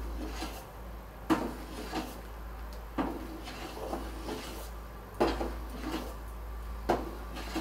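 Metal ladle stirring thick aval payasam in a stainless steel pot, knocking and scraping against the pot's sides in irregular clinks about every second or so.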